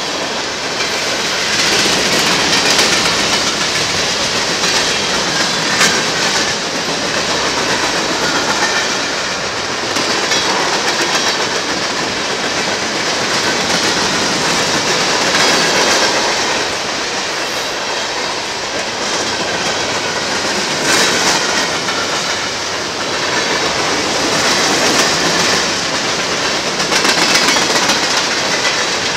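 Freight cars rolling past close by: a steady clatter and rumble of steel wheels on rail, swelling a little at times as cars go by, with faint wavering wheel squeal mixed in.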